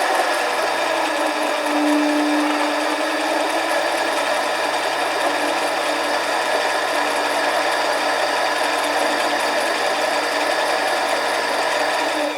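Harbor Freight 7x10 mini lathe running steadily with a motor and gear whine, taking a cut on an aluminum tube; it is switched off near the end.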